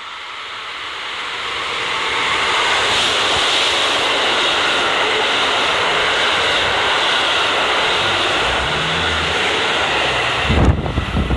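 KiHa 85 diesel railcars of a Hida limited express passing at speed. A rush of engine and wheel noise builds over the first two seconds, then holds steady and loud. Low, uneven thumps come in near the end.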